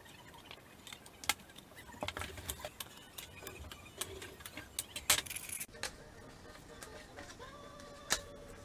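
Scissors snipping through a paper template in a run of short clicks, with paper rustling as the cut-out pieces are handled and slid over a wooden surface. Faint music comes in near the end.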